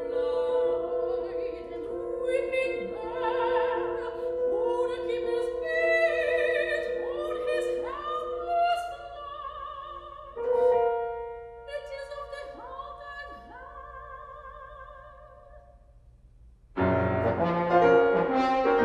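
Soprano singing a slow, wavering line over long held piano notes, growing softer; about seventeen seconds in, horn and piano come in suddenly and loudly together.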